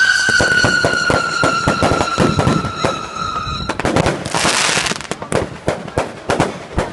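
Fireworks going off. A shrill whistle, falling slowly in pitch, sounds over rapid crackling and cuts off about halfway through. A brief rush of hiss follows, then scattered sharp pops.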